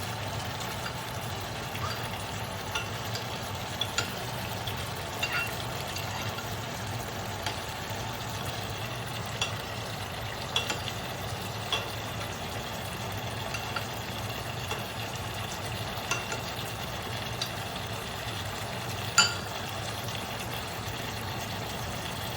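Chicken thigh pieces searing in hot oil in a pan: a steady sizzle with scattered pops and crackles over a steady low hum, and one sharper click about 19 seconds in.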